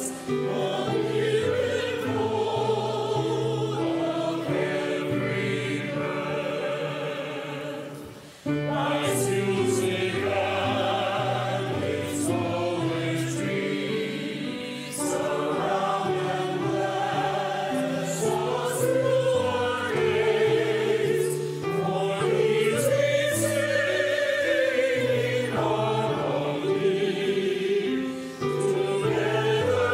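Choir and congregation singing a hymn in unison, with piano accompaniment. The singing breaks off briefly about eight seconds in, between verses, then starts again.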